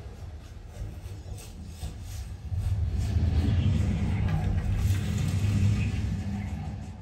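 Dolby Atmos demo film soundtrack played through a Devialet Dione 5.1.2 soundbar: a deep low rumble from its built-in subwoofers swells about two and a half seconds in, stays loud, and fades near the end.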